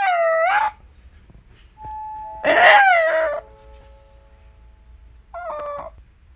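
A dog giving three short howling cries, each dipping and then rising in pitch, the middle one the longest and loudest. Faint steady chime-like tones sound between the cries.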